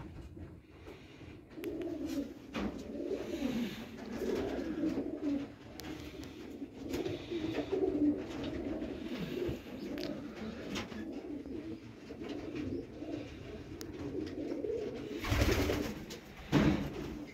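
Domestic pigeons cooing, one call after another. Near the end come two loud bumps about a second apart.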